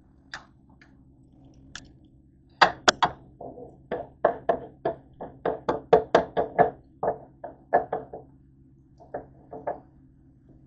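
A quick run of short knocks and clicks, two or three a second, over a faint steady low hum; a few more come near the end.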